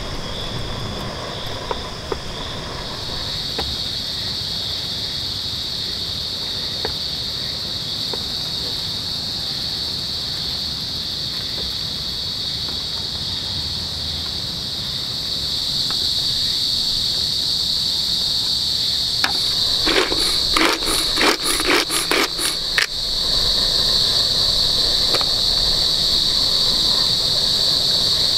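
Steady high-pitched chorus of forest insects, getting louder in the second half. About twenty seconds in comes a quick run of around ten knocks: a knife chopping on a wooden cutting board.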